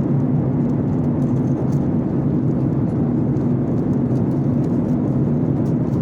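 Steady jet airliner cabin noise: an even rumble of engines and airflow.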